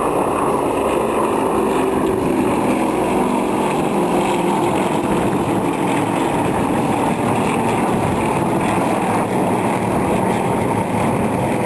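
Yakovlev Yak-52 aerobatic aircraft's nine-cylinder radial piston engines droning steadily overhead as the formation climbs.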